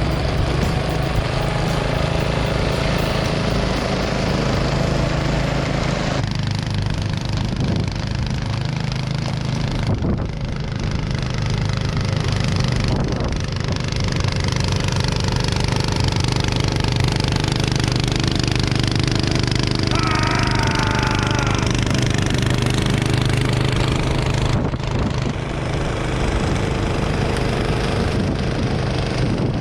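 Snowblower engine running steadily under load while clearing heavy wet snow, with a short high squeal about two-thirds of the way through.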